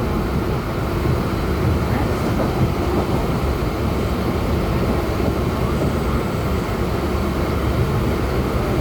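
Mumbai suburban local train running, heard from inside the coach: a steady rumble and rattle of the carriage.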